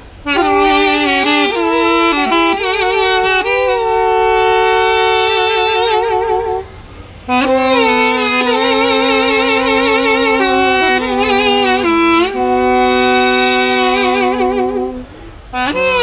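Two duduks, Armenian double-reed woodwinds, playing together: a melody with wide vibrato over a lower held note. The playing breaks off briefly about six and a half seconds in and again near the end.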